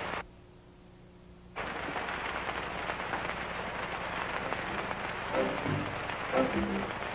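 Hiss and crackle of an old optical film soundtrack, cutting out for about a second and a half near the start, then back. A few faint pitched tones come in near the end.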